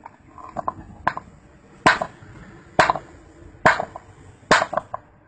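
A hammer striking a rock on a concrete slab: four sharp blows a little under a second apart, starting about two seconds in, with a few lighter taps before them.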